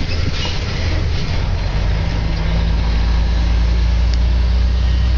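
Kenworth T2000 semi-truck's diesel engine running steadily, heard from inside the cab as a low drone. A steady higher hum joins in about two seconds in, and the sound gets a little louder.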